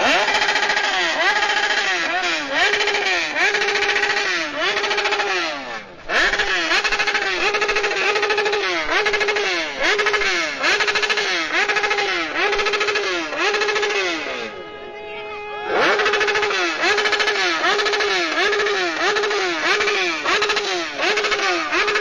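Motorcycle engine revved again and again, each blip rising in pitch, holding and dropping back, a little more than once a second. After about fourteen seconds it settles briefly to a steady idle, then the revving starts again.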